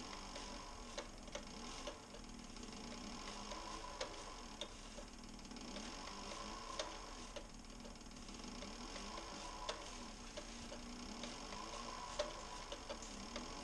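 Cobra leather sewing machine stitching through harness leather: a light, irregular ticking of the needle strokes over a faint, steady motor hum.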